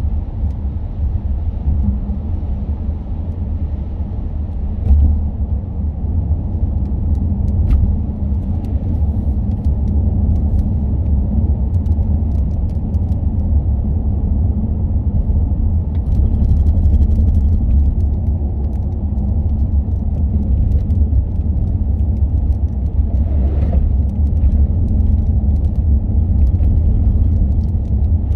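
Car driving on an expressway in the rain: a steady, loud low rumble of road and tyre noise with faint scattered ticks.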